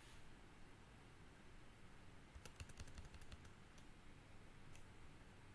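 Faint computer keyboard keystrokes: a quick run of about ten key presses about two and a half seconds in, and a single press near the end.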